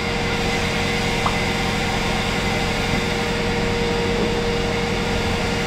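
A workshop machine running steadily: an even hiss with a constant hum through it.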